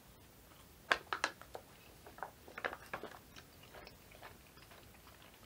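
A person chewing food close to the microphone, with a quick run of crisp crunches starting about a second in and thinning out by about four seconds.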